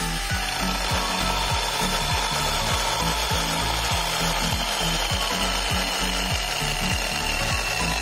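Battery-powered KIMO mini chainsaw cutting down through a log of firewood, a steady high motor whine that sinks slowly in pitch as the chain bites into the wood. Background music with a steady beat plays underneath.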